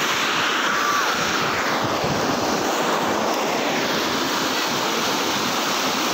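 Fast-flowing canal water rushing and churning through white water, a steady rush.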